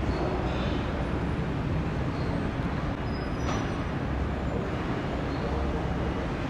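Steady road traffic noise: vehicle engines running and passing with a low rumble.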